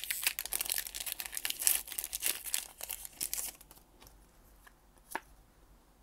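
Foil wrapper of a Pokémon trading card booster pack being torn open, with crinkling, for about three and a half seconds. Then it goes quiet apart from one light click a little after five seconds.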